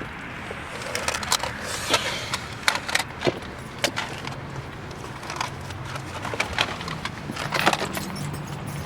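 A series of irregular sharp clicks and knocks, a dozen or so spread unevenly, over a low steady hum.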